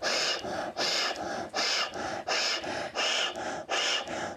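A person breathing hard in a quick, even rhythm, each breath a short rush of air, about two to three a second.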